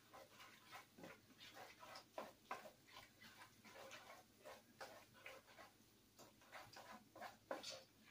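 Faint spoon stirring and scraping in a pot of mac and cheese on the stove: soft, irregular strokes, two or three a second.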